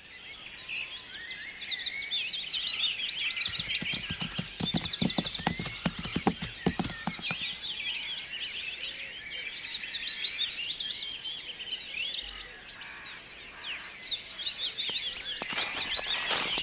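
A chorus of small birds chirping and twittering, many quick overlapping calls. A run of clicks or knocks a few seconds in.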